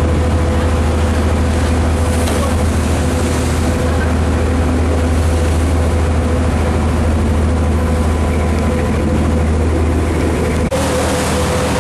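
Steady low drone of a cruise boat's engine heard from on board, with wind and water hiss over it; a short break near the end where the recording cuts.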